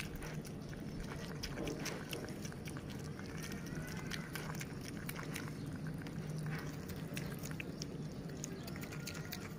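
A piglet and a baby monkey eating noodles from a tray: many quick wet chewing and smacking clicks over a steady low hum, with now and then a faint high squeak.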